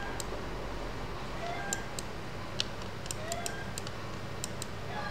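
Steady room noise with light, irregular ticks of a stylus tapping on a tablet screen while a word is handwritten.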